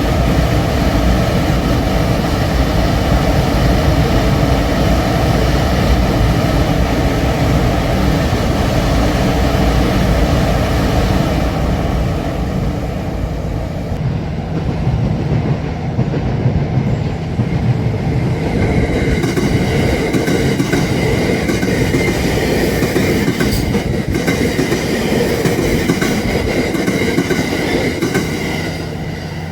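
THE ROYAL EXPRESS cruise train rolling slowly past, a heavy rumble of wheels and running gear with clickety-clack over the rail joints. A steady high wheel squeal joins over the second half.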